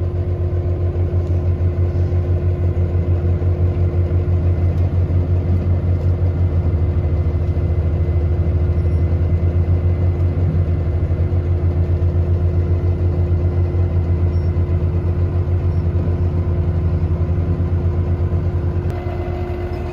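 Heavy farm machinery engine running steadily, a loud, evenly pulsing low rumble with a constant hum over it.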